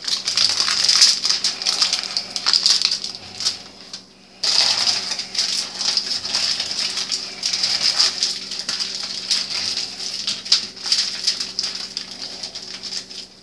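Aluminium foil crinkling and crackling as two layers of it are rolled and crimped by hand, with a brief pause about four seconds in.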